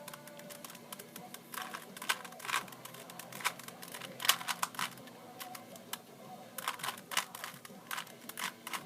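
Rubik's cube being turned quickly: a run of irregular sharp plastic clicks, several a second.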